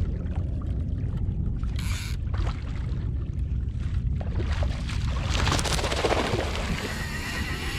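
Steady low rumble of wind and water around a kayak at sea, with a louder rush of water noise for a couple of seconds from about five seconds in.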